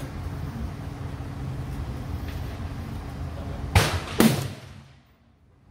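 Two rifle shots about half a second apart, a little past halfway through, each a sharp crack over a steady low background rumble.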